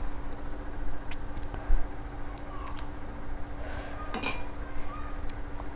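Tableware clinking during a meal: a few light clicks, then one sharp clink about four seconds in, over a steady low rumble.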